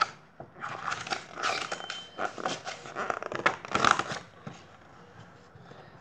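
A picture book's paper page being turned and handled, rustling and crinkling, stopping about four seconds in.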